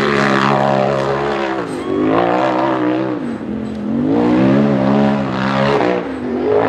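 UTV race buggy's engine revving hard under load as it climbs a steep dirt hill, its pitch surging up and dropping back every couple of seconds as the throttle is worked.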